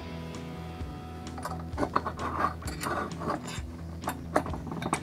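Background music with light metal clicks and rubbing from hand tools working at a minibike's rear wheel and axle, busiest in the middle.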